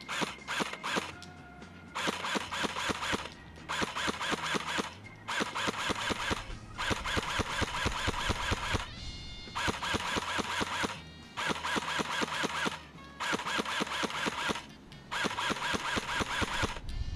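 ASP SVU OTS-03 electric airsoft rifle firing on full auto in about seven bursts of one to two seconds each, with short pauses between them.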